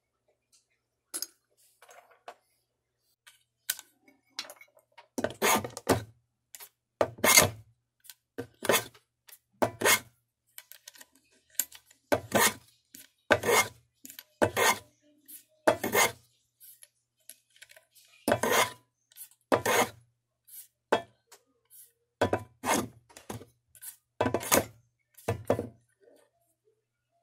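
A series of sharp knocks and clatters of small hard objects, roughly one a second at uneven spacing, many with a dull thud beneath them.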